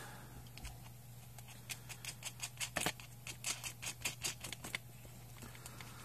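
Small metal hardware being handled as a nut is threaded by hand onto a stud of an arcade joystick's metal mounting plate: a run of light clicks and ticks, one sharper than the rest, over a steady low hum.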